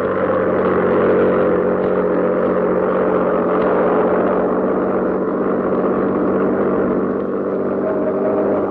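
Piston engine of a propeller fighter plane droning steadily at high power as it takes off and climbs away, its pitch sinking slowly, with a higher tone coming in near the end.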